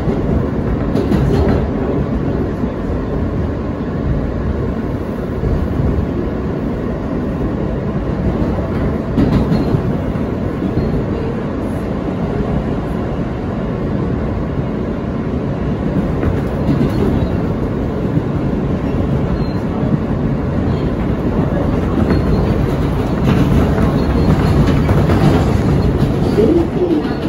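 Interior of an R160A subway car running between stations: a steady rumble of wheels on the rails, with occasional clicks as the wheels cross rail joints. It grows slightly louder in the last few seconds.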